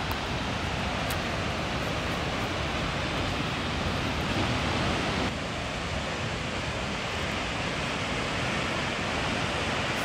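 Steady rushing hiss of a tall waterfall falling across the canyon, even throughout, dipping slightly about five seconds in.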